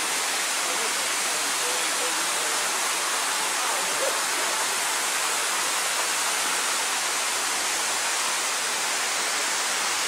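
Steady, even rush of flowing water from the waterfall's stream.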